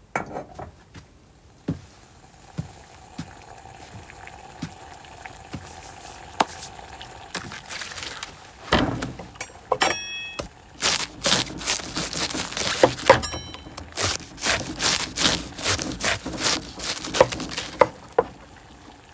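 A knife cutting through a head of cabbage on a wooden cutting board: from about halfway in, a crunchy cut into the head followed by many quick chopping knocks against the board. Before that, a few sparse knocks and clinks over a faint steady hum.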